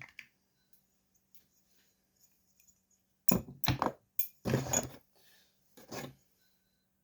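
Chainsaw parts and hand tools being handled and set down on a workbench: a few short bursts of clattering and knocking in the second half.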